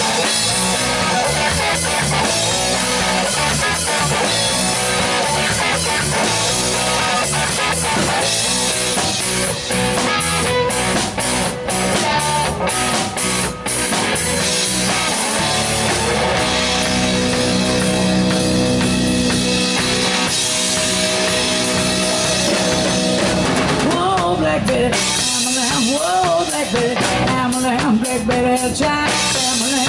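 Live rock band playing: electric guitar and electric bass over a Pearl drum kit, with steady drumming and a run of sharp drum and cymbal hits midway.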